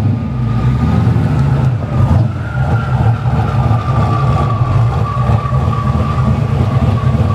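Hennessey Venom GT's twin-turbo V8 idling close by: a steady, loud low rumble with a thin high whine running over it.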